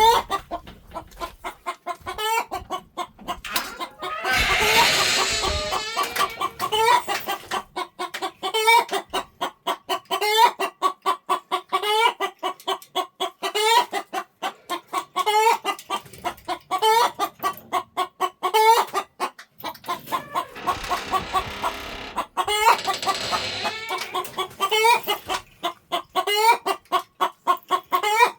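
Chickens clucking in a steady, rapid run of short clucks, several a second. Twice, about four seconds in and again past the twenty-second mark, a longer, louder, harsher call rises above the clucking, in the manner of a rooster crowing.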